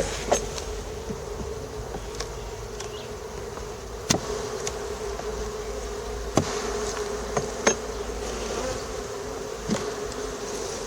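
Steady buzzing hum of a honeybee colony swarming over an open hive during an inspection, with four sharp clicks spread through it.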